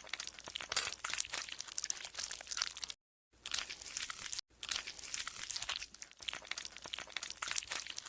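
Golden slime being squeezed and worked by hand, giving a dense run of small crackling clicks and squelches. The sound cuts out completely for a moment about three seconds in and again around four and a half seconds in.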